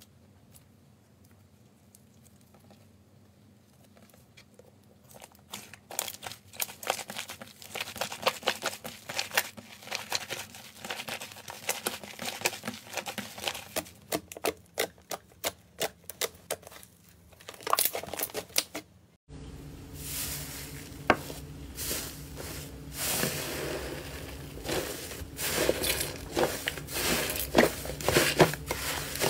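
Hands squeezing and kneading slime, giving a run of small crackling pops and sticky squelches that start faint and grow denser. About two-thirds of the way in the sound changes abruptly to thicker, busier crackling as a second batch of slime is squished.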